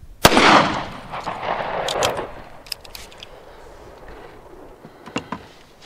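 A single .45 ACP pistol shot from a 1911, firing a 165-grain Federal Hydra-Shok hollow point, about a quarter second in, followed by a long echo that dies away over about two seconds. A few faint clicks come later.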